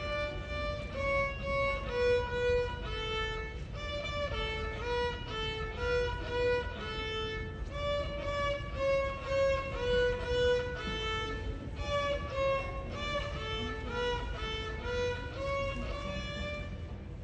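A child playing a simple tune on solo violin, separate bowed notes at about two a second, stopping briefly near the end.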